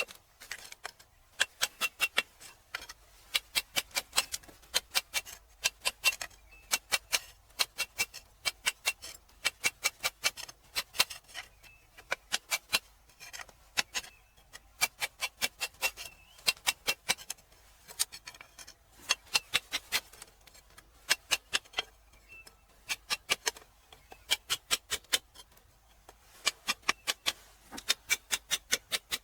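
Quick, sharp taps of a hard tool on rock, coming in runs of several strikes with short pauses between runs, as when chipping crystal geodes free from stone.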